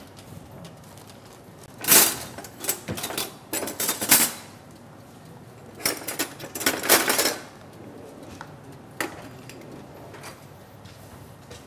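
Kitchen utensils clattering and scraping against pots and dishes in two bursts a few seconds apart, then a single click.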